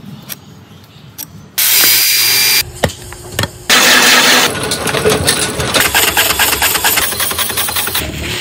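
Matchstick factory machinery running: scattered clicks, two loud spans of steady noise in the first half, then dense, rapid mechanical clacking from about halfway in.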